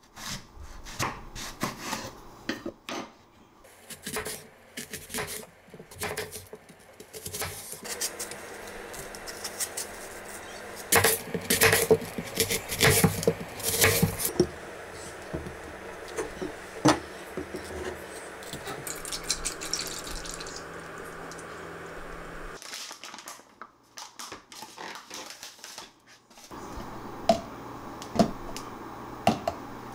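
A small kitchen knife cutting through a whole apple onto a wooden cutting board: a run of sharp, crunchy cuts and knocks against the board, loudest in a burst in the middle. Near the end come lighter clicks and knocks from handling a plastic shaker bottle.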